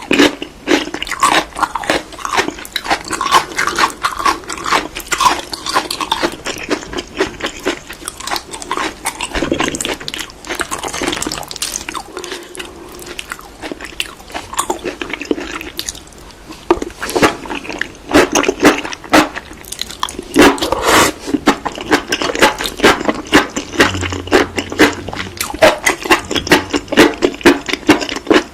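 Close-up eating of seaweed: many quick crunchy bites and wet chewing clicks, continuous throughout.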